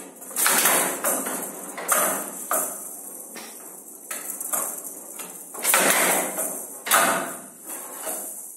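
Showdown rally: the rattling showdown ball, with metal beads inside, rolls across the wooden table and is struck by the players' bats and knocked off the side walls. Several sharp knocks come a second or more apart over the ball's constant rattle.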